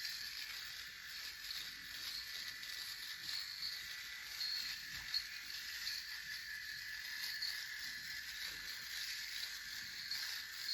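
Electric razor running and cutting through stubble while a man shaves: a steady buzz with a fluctuating crackle on top.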